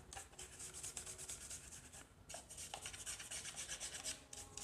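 Damp toothbrush scrubbing the rubber parts and corners of a DSLR camera body: a faint run of quick bristle strokes, with a short pause about two seconds in.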